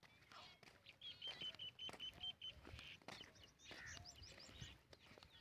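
Faint bird calls: a fast string of short repeated notes, about seven a second, starting about a second in, then a brief flurry of high chirps around four seconds in, with a few faint clicks.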